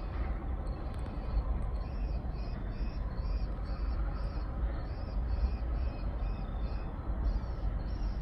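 Night insects chirping in a steady pulsing rhythm, about two to three chirps a second, over a low steady rumble.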